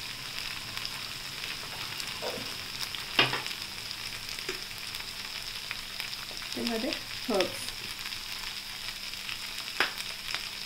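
Tomato and onion sauce with chilli powder and chilli flakes sizzling steadily in oil in a frying pan, with scattered crackles. A few sharp clicks cut through, the loudest about three seconds in and another near the end.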